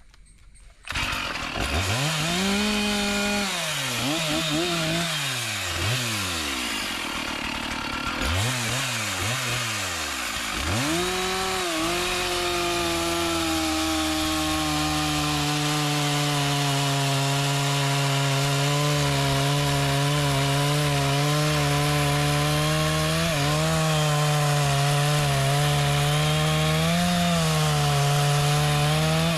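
Chainsaw cutting a mahogany tree: it starts about a second in, is revved up and down in short bursts several times, then from about twelve seconds in is held at a steady high speed with small dips as it cuts into the wood.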